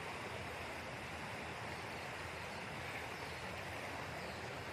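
Steady rush of a shallow, rocky stream flowing over stones, an even low hiss with no breaks.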